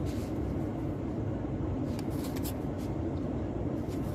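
Cards and paper inserts being handled: a few brief rustles about two seconds in, over a steady low background hum.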